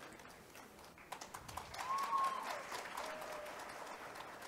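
Scattered audience applause, picking up about a second in, with a brief voice calling out over it about two seconds in.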